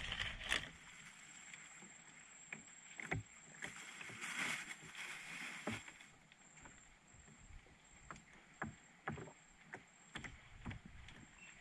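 Scattered light knocks and taps on a small wooden boat as the angler shifts about and handles the rods, over quiet river ambience with a soft hiss about four seconds in and a faint steady high tone.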